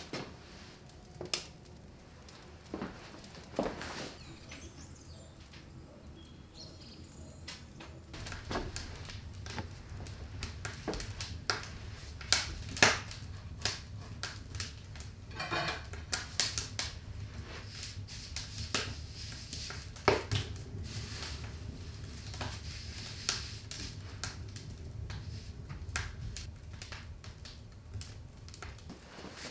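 Kitchen handling sounds: scattered clicks and knocks of utensils and dishes being worked, with a low steady hum coming in about eight seconds in.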